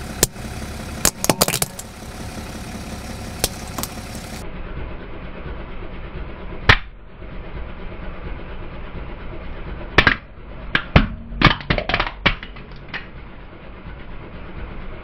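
Car tyre rolling slowly over hard plastic toy building blocks and crushing them: sharp plastic cracks and snaps, the loudest about seven seconds in and a quick cluster between ten and thirteen seconds, over the low steady running of the car's engine.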